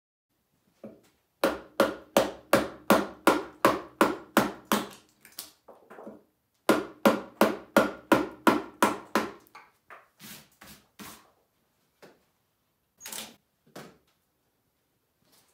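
Mallet striking a carving chisel or gouge into a wooden log, in two quick runs of blows about three a second with a short pause between. A few scattered lighter knocks follow.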